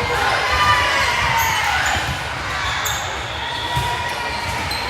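Gym sounds during a volleyball rally: irregular thuds of ball and feet on the court, with high squeaks gliding in pitch, like sneakers on the hardwood.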